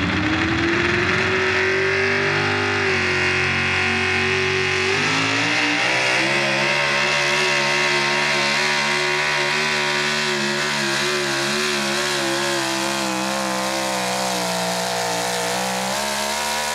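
Chevy square-body Pro Stock 4x4 pulling truck's engine running flat out while pulling a weight-transfer sled down the dirt track. The revs climb at the start, drop in two steps as the sled's load builds, hold with a slight waver, then fall away sharply at the end as the throttle is let off.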